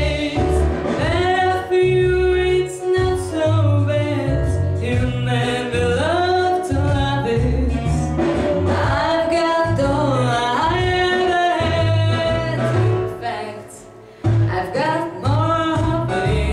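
A woman singing a song from a musical over a backing track with a steady bass line, her voice gliding between held notes. Voice and track drop away briefly near the end before the singing resumes.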